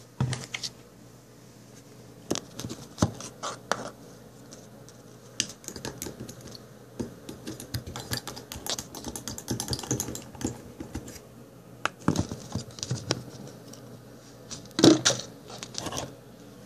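Handling noise close to the microphone: irregular clicks, taps and scrapes, with a louder knock about fifteen seconds in.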